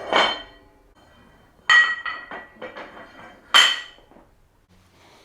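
Iron weight plates and a barbell clanking together as plates are loaded onto the bar. There are several sharp metallic clanks that ring briefly, two of them loudest, about two seconds apart.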